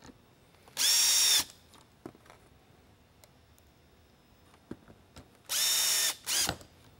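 Cordless drill-driver driving screws into the back of a plastic LED lighthead housing. It runs in two short spurts of steady whine, about a second in and near the end, and the second run is followed by a brief extra burst as the screw seats. Small clicks of handling the screws and bit come in between.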